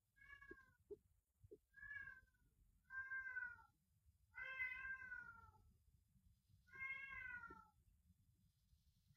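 A very young kitten mewing five times at the feeding bottle: short high calls, each under a second, dropping in pitch at the end.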